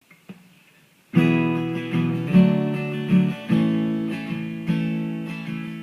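Acoustic guitar intro: a faint pluck, then about a second in, strummed chords start and ring on with repeated strokes.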